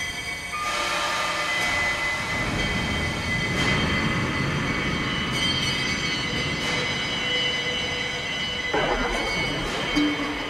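Electroacoustic soundtrack: many sustained high screeching tones layered over a dense rumbling noise. Near the end comes a sudden rush of noise, then a low steady hum.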